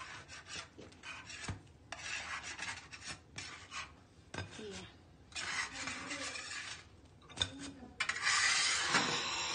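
Pastry brush rubbing and scraping over bread loaves and a metal baking tray. The scratchy strokes come in several spells, the loudest near the end, with a few light knocks against the tray.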